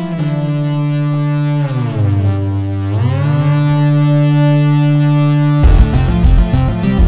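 Waldorf Blofeld synthesizer playing a fat monophonic analog-style patch: a held low note that glides down in pitch and back up about two to three seconds in. Near the end it turns suddenly into a loud, choppy pattern with a heavy low end.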